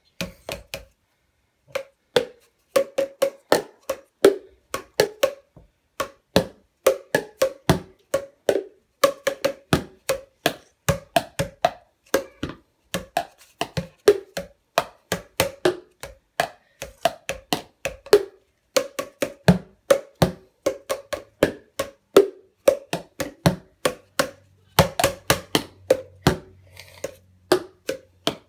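Upturned plastic bowls and tubs beaten like a drum kit with a wooden stick and a plastic stick: an uneven stream of sharp knocks, about two to four a second, after a short pause about a second in.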